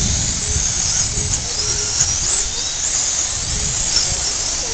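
Electric radio-controlled dirt oval late model cars racing, their motors whining high over a steady hiss, with a low rumble underneath.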